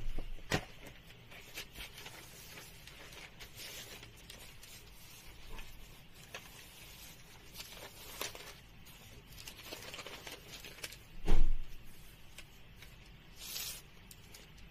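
Sheets of calligraphy rice paper being handled and shifted: scattered rustles and light taps, with one louder thump about eleven seconds in and a brief papery swish near the end.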